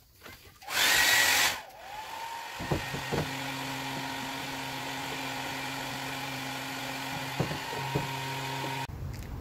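A handheld electric hot-air blower heats black vinyl wrap on a car hood. It spins up about two seconds in, runs with a steady hum and whine, and cuts off suddenly shortly before the end. A short, loud rush of noise comes about a second in, and a few light knocks sound while the blower runs.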